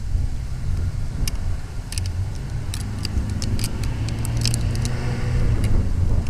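Low rumble of wind on the microphone, with sharp clicks and light metallic rattles as a fishing rod and spinning reel are handled. A steady low hum comes in about halfway through.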